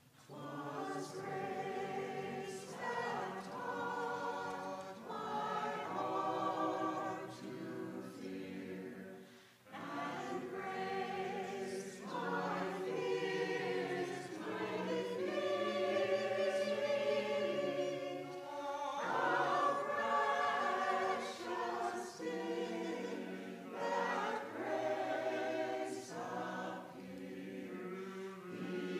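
Church choir singing in phrases. The singing starts at the beginning and breaks off briefly about ten seconds in.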